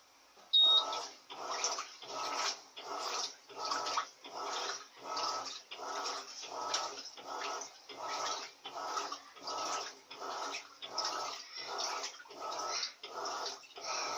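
Electrolux LAC 16 top-load washing machine agitating a duvet in water: a regular swishing and sloshing, about two strokes a second, running at normal strength with the silent cycle switched off. A short high beep sounds just before the agitation starts.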